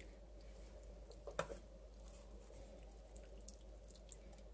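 Faint soft ticks and a light tap about a second and a half in, from a spatula lifting a serving of cheesy spaghetti casserole out of a glass baking dish, over a low room hum.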